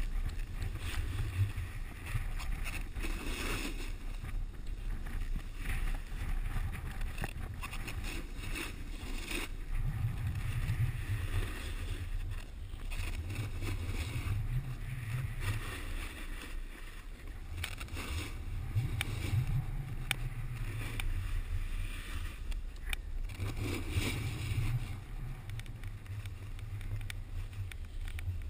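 Snowboard sliding and carving over packed snow, its edge scraping and hissing, with wind buffeting the microphone in a low rumble that rises and falls every few seconds.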